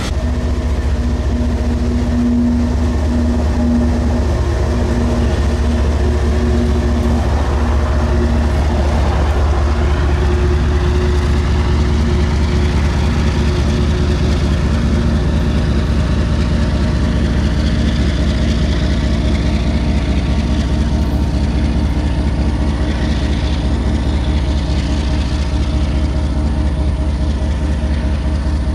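Diesel engine of a CN GE ES44AC locomotive running steadily as it pulls a tank-car train, a loud, deep, even hum with a steady tone above it.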